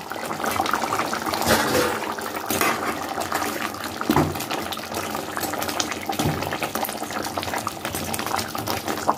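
Barbecue sauce simmering in a pot, bubbling steadily, while a spoon stirs through it and knocks against the pot a few times.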